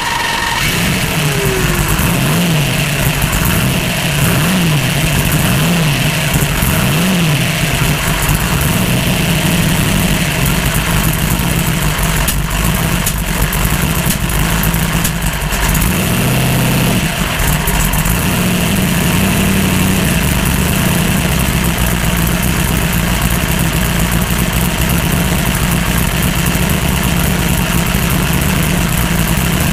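Twin-turbo drag-racing Mustang's engine idling, heard from inside the stripped-out cockpit. Four short, light blips of the throttle come in the first several seconds, then it settles into a steady idle.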